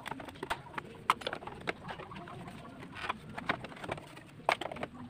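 Irregular light clicks and knocks of a scooter's plastic exhaust cover being handled and worked loose by hand, with a sharper knock about a second in and another near the end.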